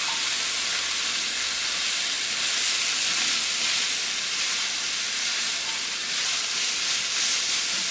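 Cut green beans sizzling steadily in hot oil in a wok over high heat as they are stirred with a silicone spatula.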